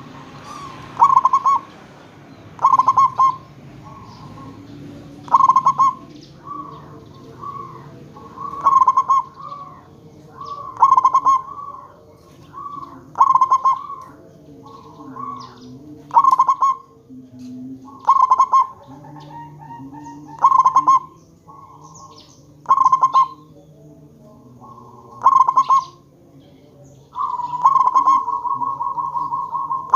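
Zebra dove (perkutut) cooing: loud, clipped call phrases repeated about every two seconds, with a longer rapid run near the end. Softer, lower cooing runs underneath.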